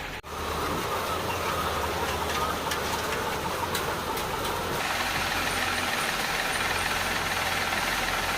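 Steady running of motorised layer-cage equipment in a hen house: a low, even motor hum under a broad mechanical noise, which changes slightly about five seconds in.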